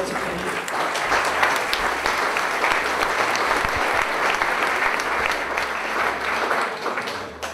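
Audience applauding in a hall: a dense, steady patter of clapping that dies away near the end.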